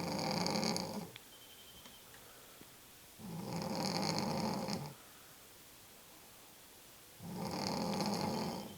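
A woman snoring in her sleep: three loud, rattling snores, each about a second and a half long, coming about every four seconds.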